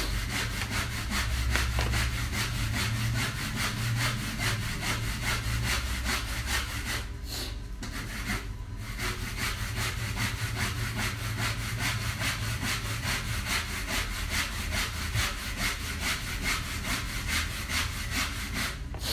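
Steady rhythmic scraping, about five strokes a second, pausing briefly twice around seven and eight and a half seconds in.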